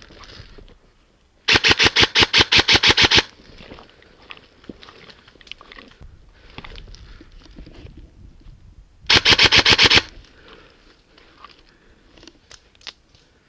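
Airsoft electric M4 rifle firing two rapid full-auto bursts, the first about a second and a half long and the second shorter, about nine seconds in. Faint clicks and rustling come between the bursts.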